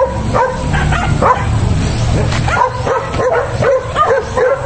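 Dogs yipping and barking in many short calls, coming thicker in the second half, over a low rumble.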